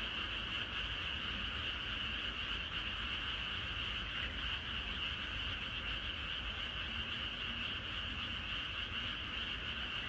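Dense chorus of frogs calling all at once, a steady unbroken high-pitched trill with no pauses.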